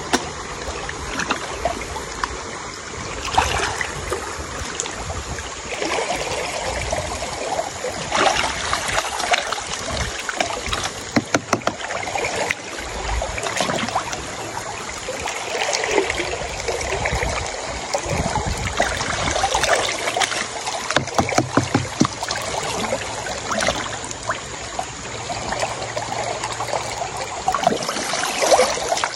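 Shallow river water sloshing and splashing around a person wading and working a gold pan, with many short splashes throughout.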